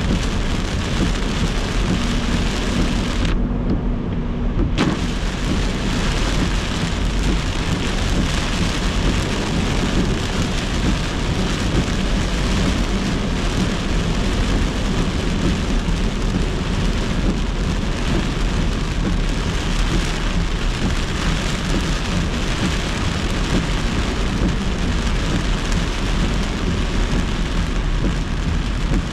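Heavy thunderstorm rain pelting a moving car's windshield and roof, with wet-road tyre noise, heard from inside the car as a dense, steady hiss. About three seconds in, the higher part of the rain sound drops away for a second or so, then returns.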